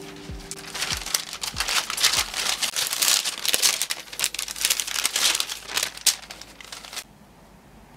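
Parchment paper crinkling and rustling as it is handled over rolled-out tart dough, in quick crackly bursts. It stops abruptly about seven seconds in.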